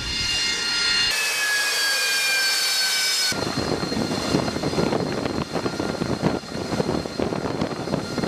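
AV-8B Harrier II's Pegasus turbofan whining with several high tones slowly falling in pitch. About three seconds in, a hard cut switches to a Seahawk helicopter landing: a dense, rapidly pulsing rotor and turbine rumble.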